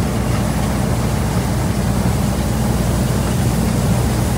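Rice combine harvester's engine running steadily, a constant low drone with no change in speed.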